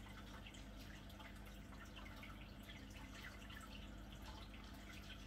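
Faint trickling and dripping of circulating reef-aquarium water, a scatter of small irregular drips over a steady low hum.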